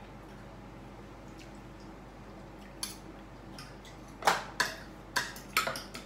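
Mussel shells and cutlery clicking against plates and the serving tray as people eat steamed mussels: a single click about halfway through, then a quick run of five or six sharp clicks near the end.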